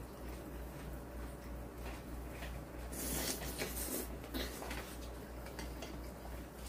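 Quiet eating sounds: chewing on braised semi-dried pollack, with chopsticks clicking against the dishes and a louder rustling stretch about three seconds in, over a steady low hum.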